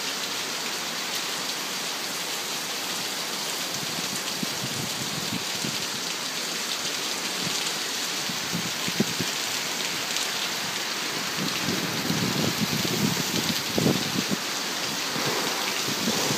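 Heavy rain pouring down steadily in a severe thunderstorm, with irregular low thumps that grow more frequent in the second half.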